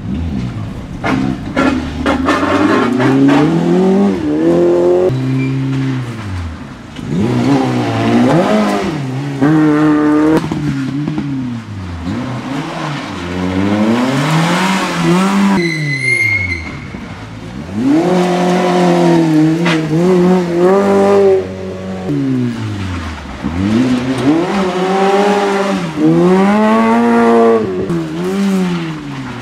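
Small four-cylinder hatchback rally cars, Citroën Saxos among them, taking a hairpin one after another: each engine drops in pitch as the car brakes into the turn, then revs up hard through the gears as it accelerates away. A brief high squeal comes about halfway through.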